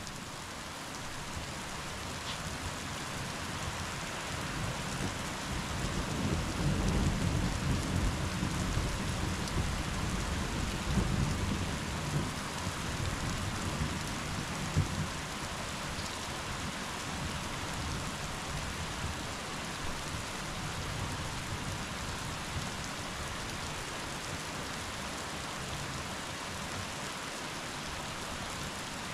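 Steady rain heard through a window, with a long low roll of thunder that builds a few seconds in, is loudest around a third of the way through and dies away before halfway.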